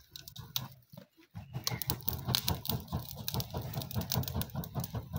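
Plastic plate fanning a freshly lit charcoal stove in quick, even strokes, a rapid run of air whooshes against the microphone, to get the charcoal burning. The strokes start about a second and a half in, with sharp crackles from the burning fire among them.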